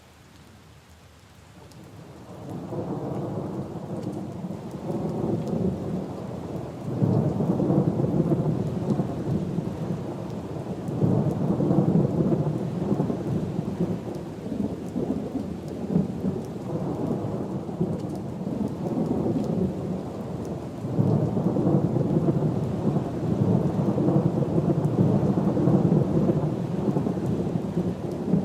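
Steady rain falling on puddles and leaves, with a long roll of thunder that builds in about two seconds in and swells again several times as it rumbles on.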